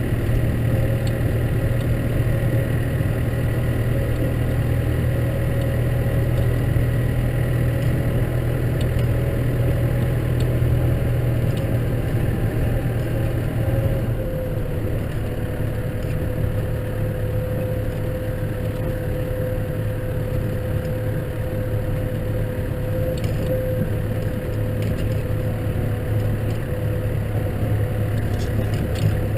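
Case tractor's diesel engine running steadily. About halfway through, its note drops a little in pitch and loudness.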